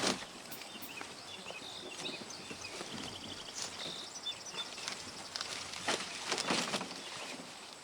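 Dry corn stalks rustling and crackling as they are pulled and handled, in a few scattered bursts, strongest a little after the middle. Faint high chirping runs underneath in the first half.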